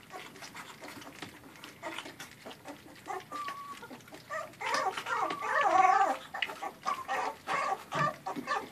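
A litter of puppies eating wet puppy mush from plates, a steady patter of small lapping and slurping clicks. There is a short squeak about three seconds in, and about halfway through a louder second-long burst of puppy squealing and whining.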